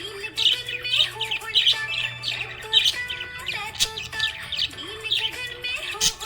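Budgerigars chirping and warbling in busy runs of high chirps, over background music.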